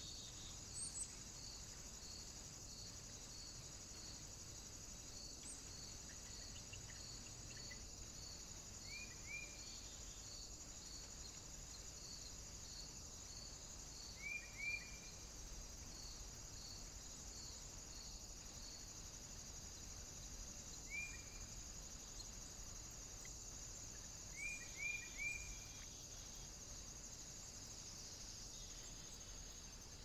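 Faint, steady high-pitched insect trilling, such as crickets, with a regular chirp about twice a second through the first half. Short bird chirps break in a few times, in pairs and threes.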